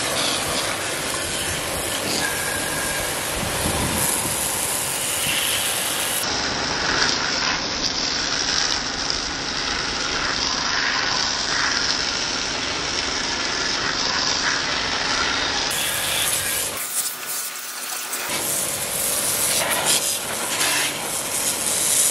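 Pressure-washer water jet spraying onto a scooter's rear wheel and exhaust muffler, a steady hiss of water striking metal and splattering off.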